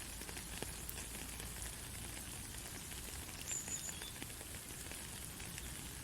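Faint steady hiss of background ambience with scattered light ticks, and a brief high chirp about three and a half seconds in.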